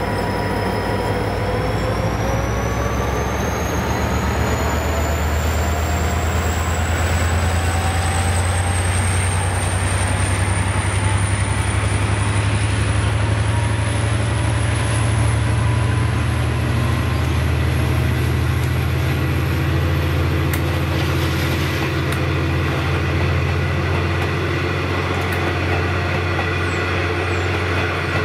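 V/Line A Class bulldog-nose EMD diesel locomotive departing with passenger carriages. There is a deep, steady engine drone, and a high whine rises slowly in pitch over the first half as the train gathers speed. Carriage wheels roll past, with a couple of clicks about two-thirds of the way through.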